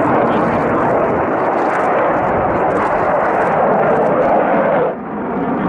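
Fighter jet engines running loud and steady as the jet manoeuvres overhead. About five seconds in, the noise drops abruptly, then picks up again with less treble.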